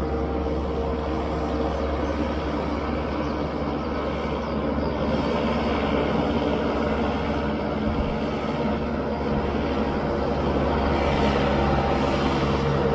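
Diesel tractor engine running steadily under load as it drives a rotary harrow through a flooded rice paddy, puddling the mud. The sound grows a little louder near the end.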